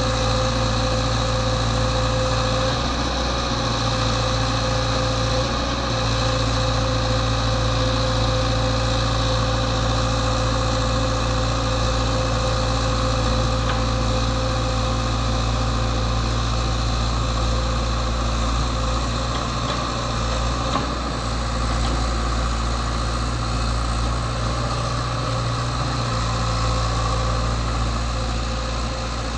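Diesel engine of a Komatsu PC75UU mini excavator running steadily, with steady whining tones over the engine note.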